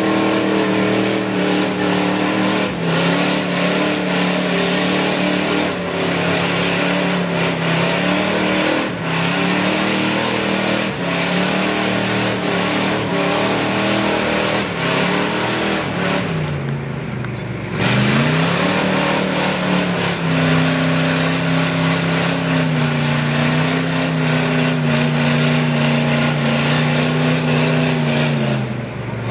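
Lifted Ford mud truck's V8 with open headers working hard through the mud, its revs stepping up and down. About 17 s in the engine drops off briefly, then revs sharply back up and pulls steady again, falling off once more near the end.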